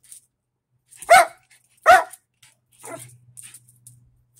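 Small dog giving two sharp, high barks about a second apart, then a quieter third bark about three seconds in: demand barking for a ball held back from it.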